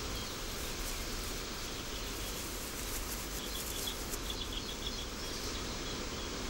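Steady outdoor ambience hiss with faint, high chirping in a few short clusters near the middle.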